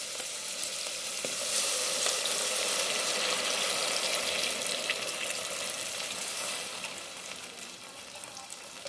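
Butter and oil sizzling in a metal pan with sautéed garlic, onion and mushrooms while a milk-and-cream mixture is poured in. The sizzle dies down over the last couple of seconds.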